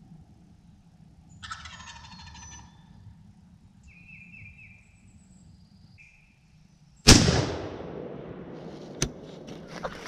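A wild turkey gobbles once, a quick rattling call, with a few small bird chirps after it. About seven seconds in, a single loud bang rings out and dies away.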